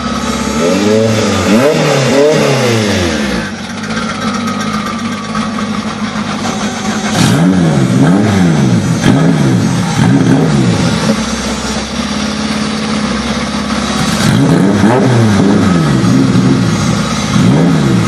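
Car engines idling at the start line of a drag race, with the drivers blipping the throttle in quick bunches of revs that rise and fall several times over.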